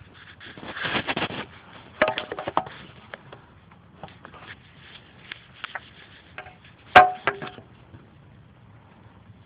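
Phone handling noise: fingers rubbing and tapping on the phone around its microphone. There is a rustling swell about a second in, a cluster of clicks around two seconds, and one sharp knock about seven seconds in, the loudest of them.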